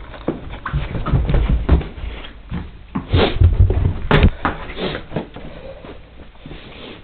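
Handling and rummaging noises: a run of irregular knocks, thumps and rustles, loudest around three to four seconds in, with one sharp click just after four seconds.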